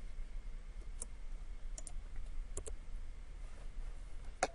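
Computer mouse clicking: about six short, scattered clicks, the loudest one near the end, over a faint low steady hum.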